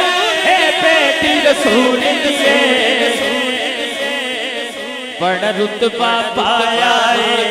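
Men singing a Punjabi devotional manqabat without instruments: a lead voice with a chorus behind it, a new sung phrase starting about five seconds in.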